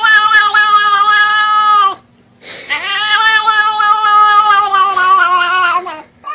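A cat giving long, drawn-out, unusual meows. Two calls are each held for two to three seconds at a nearly steady pitch and sag at the end, and a third starts right at the end.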